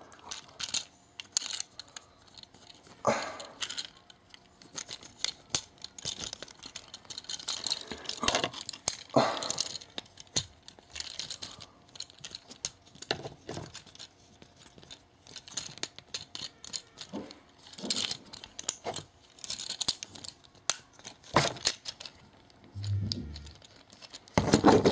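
Irregular clicks, snaps and scrapes of a Hasbro Transformers Dark of the Moon Deluxe Class Ratchet action figure's plastic parts as its legs and other parts are rotated and handled during transformation.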